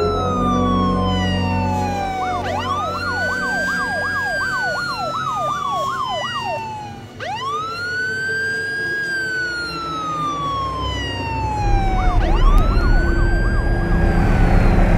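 Siren wailing, each cycle rising quickly and then falling slowly over about two seconds, with a fast warbling yelp laid over it twice. A deep low rumble underneath swells louder near the end.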